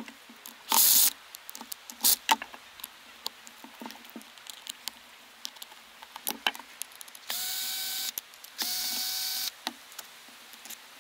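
Cordless drill-driver backing out the screws of a Shurflo 4008 water pump's housing, its motor whirring in two short runs near the end, with clicks and knocks of the screws and plastic pump parts being handled and a short loud noise about a second in.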